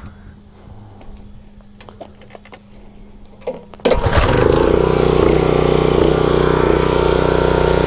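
Briggs & Stratton CR950 small engine on a pressure washer, pull-started and catching about four seconds in, then running steadily.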